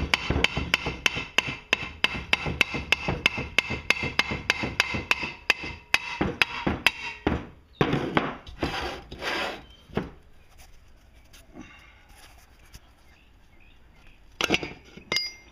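Hammer tapping steadily, about three taps a second, on a socket set against the end of the crankshaft of a 1967 5 hp Briggs & Stratton L-head engine to drive the shaft out of the block; the owner puts its stiffness down to rust. The tapping stops after about seven seconds, followed by some scraping and, near the end, a few metal clinks with a short ring.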